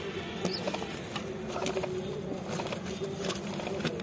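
Adult pigeon feeding its squab beak-to-beak: busy rustling and wing fluttering on the straw bedding as the squab begs and pushes in, with a faint squeak from the squab about half a second in.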